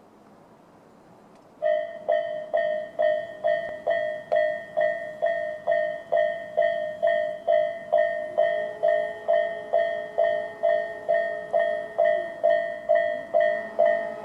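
Japanese level-crossing warning bell in the Tobu 'sound A' electronic tone switching on about two seconds in and dinging about twice a second, the signal that a train is approaching. A fainter steady lower tone sounds beneath it for a few seconds in the middle.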